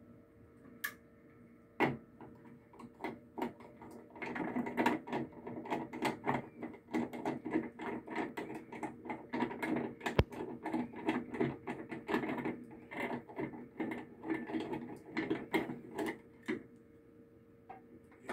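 Screwdriver backing out the screws of a GFCI outlet in a metal box: a rapid run of small metallic clicks and scrapes that starts about four seconds in and stops a couple of seconds before the end.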